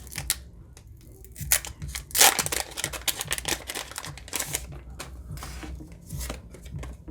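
Foil booster pack wrapper being torn open and handled: irregular sharp crinkling crackles and clicks, loudest about two seconds in.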